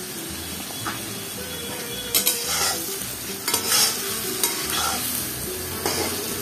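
Chopped onions sizzling steadily in hot oil in an iron kadai, with a metal spatula scraping and stirring them in several strokes from about two seconds in.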